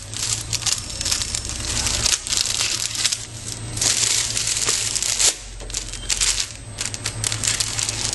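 PVC shrink film crinkling and rustling as it is handled, coming and going unevenly with sharp crackles, over a low steady hum.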